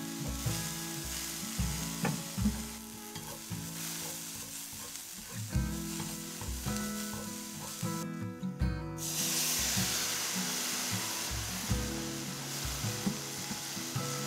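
Julienned zucchini and then carrots sizzling on a hot cast-iron griddle, stirred with wooden chopsticks. The sizzle breaks off briefly about eight seconds in and comes back stronger.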